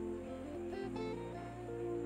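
Soft background music: sustained low notes that change about a second in, under a slow melody.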